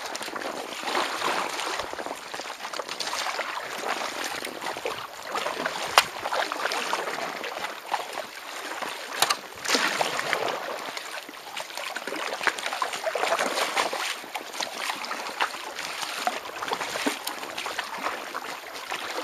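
Kayak paddling close along a rock face: water splashing and lapping against the stone and hull, swelling with each paddle stroke, with a sharp knock about six seconds in and another a few seconds later.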